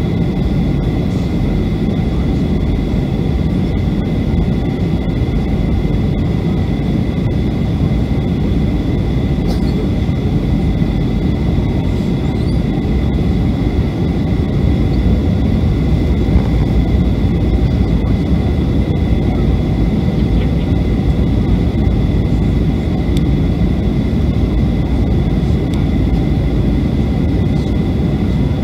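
Jet airliner cabin noise on approach, heard from a window seat next to the engine: a loud, steady rumble of engine and airflow with two steady high whining tones on top.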